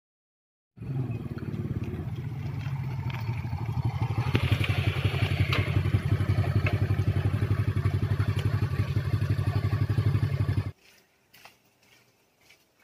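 Small motorcycle engine running as the bike rides along, with a fast even pulse; it grows louder a few seconds in. The sound starts abruptly about a second in and cuts off suddenly near the end.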